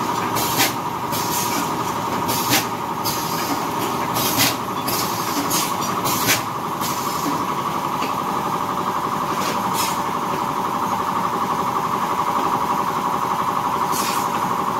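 Pneumatic pouch packing machine running: a steady hum, broken by short, sharp bursts of air as the air cylinder drives the sealing jaws. The bursts come every second or so for the first several seconds, then only twice more.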